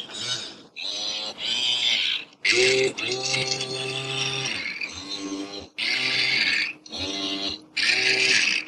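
Electronic robot sound effect: a run of short, buzzy, pitched warbles with a hissy top, stopping and starting about eight times, with one longer held sound about two and a half seconds in.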